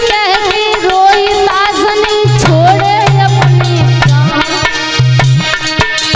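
A woman singing a sorrowful Hindi devotional song, holding and bending long notes, over steady tabla-like hand-drum beats. A low held accompanying note comes in about two seconds in and drops in and out.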